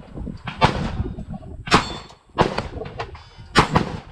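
Suppressed 9mm pistol firing about four or five shots at an uneven pace, each a sharp muffled crack, with steel gong targets ringing.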